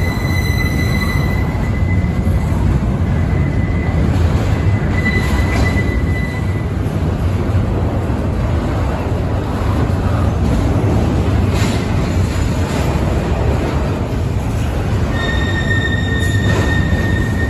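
CSX double-stack intermodal container train rolling past, its cars and wheels making a loud, steady rumble on the rails. A high, steady squeal from the steel wheels rides over it for the first six seconds or so and sets in again a couple of seconds before the end.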